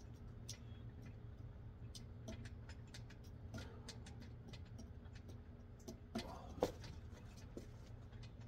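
Faint scattered clicks and ticks from a metal dip station and the body working it during a set of dips, over a steady low rumble. A louder knock about six and a half seconds in, as he comes off the bars.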